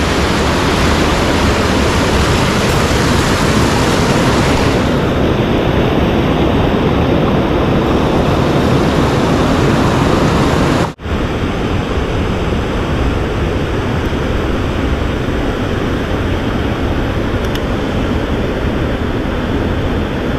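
Rushing water of a mountain headwater stream, a steady loud rush. It drops out for an instant about eleven seconds in.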